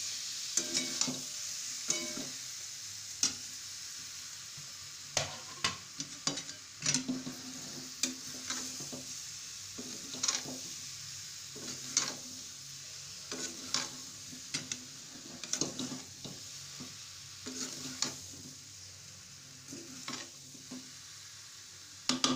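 Spatula stirring moong dal dumplings through masala frying in oil in a steel kadai, with irregular knocks and scrapes against the pan over a steady sizzle.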